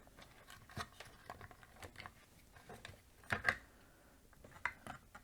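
Faint, scattered clicks and light taps of small tools and multimeter probes being handled on a workbench, with a slightly louder pair of clicks a little past halfway.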